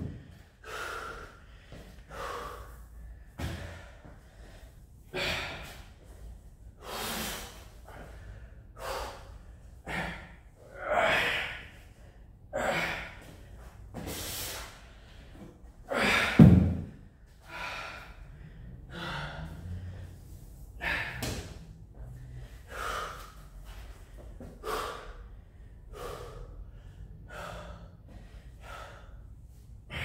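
Heavy, gasping exercise breaths from a man, one every second or two. About sixteen seconds in, a slam ball thrown down hits the floor with a single loud thud.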